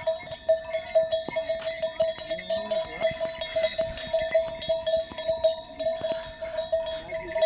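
Harness bell on a riding horse, jingling in an even pulse several times a second as the horse walks, with scattered dull knocks underneath.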